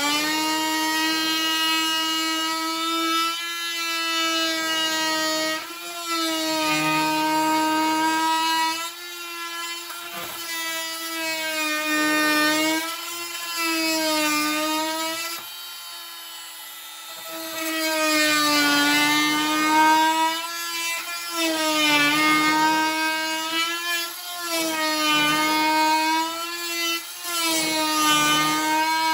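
Oscillating multi-tool running and cutting into the wooden edge of a countertop sink cutout. It holds a steady high hum whose pitch dips each time the blade bites and comes back up between cuts, with a quieter stretch about halfway through.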